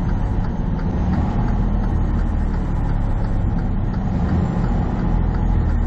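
A semi truck's diesel engine runs steadily as a low drone, heard from inside the cab along with road noise while the truck moves slowly in traffic.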